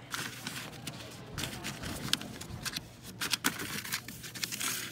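Filter paper rustling and crinkling as hands slide over it and press it flat onto the filter cloth in a Buchner filter bowl, with a few sharp crackles.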